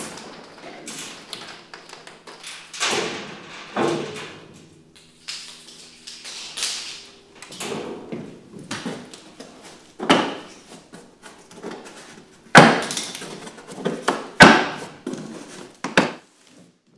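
A large cardboard shipping box being opened by hand: cardboard rustling, scraping and tearing in short bursts. Several sharp knocks come in the second half, the loudest two about two seconds apart.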